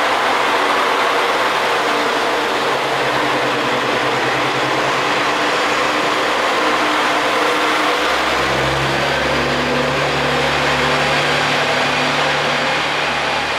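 KiHa 40 series two-car diesel railcar set pulling away and passing close by at low speed, its diesel engines running under power. About eight seconds in, a deeper engine drone comes in as the rear car goes by.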